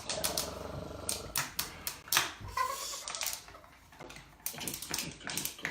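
Clicks and clatter of plastic LEGO pieces and toy figures being handled, mixed with animal-like vocal sounds.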